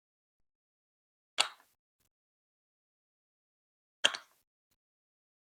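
Two sharp plastic clacks on Lego Duplo bricks, each short and dying away quickly, about two and a half seconds apart.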